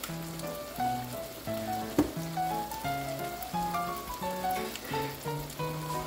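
Background music, a simple melody of held notes, over a steady crackling sizzle of chicken and onions frying in a pan; one sharp click about two seconds in.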